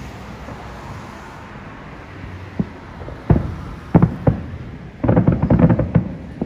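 Distant aerial fireworks shells going off: several separate booms, then about a second of rapid crackling pops near the end.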